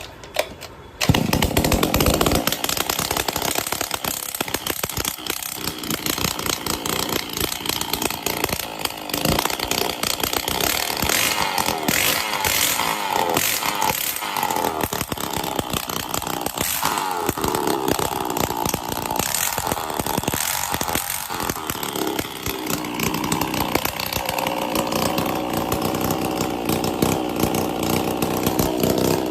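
Kisankraft KKBC 555 two-stroke brush cutter engine starting about a second in and then running loud and uneven with its silencer removed. It runs only without the silencer because the silencer is blocked with mud.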